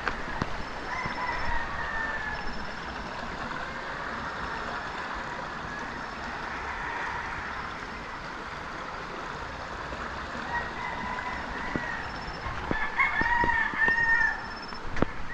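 A rooster crowing: faintly about a second in, then louder near the end in a drawn-out multi-part crow. Underneath runs a steady hiss of water in a shallow rocky stream, with a few sharp footstep knocks near the end.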